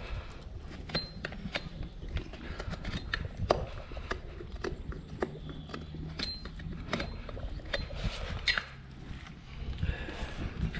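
Scattered, irregular knocks and clinks, a few of them leaving a short high metallic ring, over a steady low rumble.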